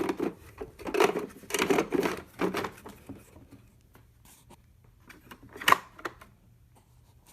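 A slide ring being fitted onto a slide projector: rattling and scraping handling noises for the first few seconds, then one sharp click about five and a half seconds in as it seats.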